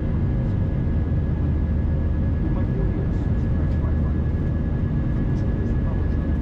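Steady jet engine and airflow noise inside an Airbus A319's cabin: a low drone with a thin, even whine above it.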